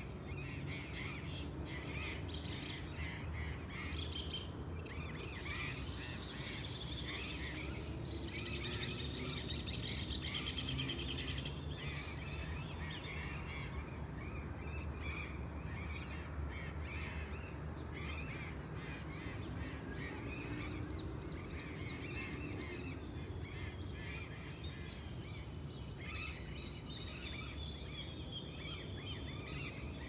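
Dawn chorus of many birds chirping and calling together, busiest about eight to eleven seconds in, over a low steady rumble of distant traffic.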